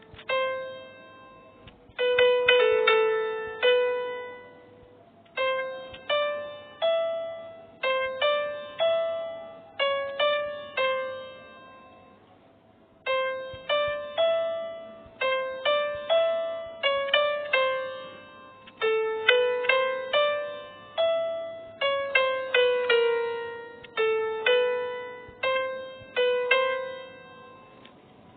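Instrumental music: a slow single-line melody of struck or plucked notes, each ringing and fading. It is played in short phrases, with a pause about halfway through.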